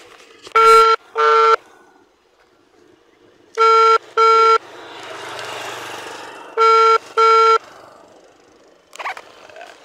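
Electronic beeper sounding in pairs of short, identical beeps, a pair about every three seconds, three pairs in all. A soft hiss swells and fades between the second and third pairs.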